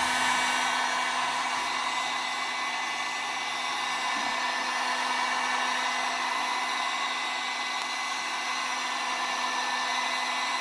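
Handheld electric heat gun running steadily, its fan blowing hot air with a steady hum. It is curing freshly sprayed wrinkle paint on a small engine part to make the finish wrinkle.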